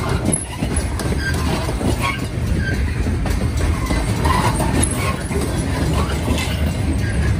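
Freight train of loaded military flatcars rolling past: a steady low rumble of steel wheels on the rails, with irregular clatter and a few short high squeaks.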